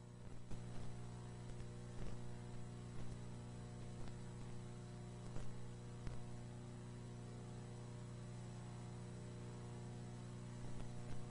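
Steady electrical mains hum with several overtones, broken by a few scattered sharp clicks and crackles, the background noise of an old silent film transfer.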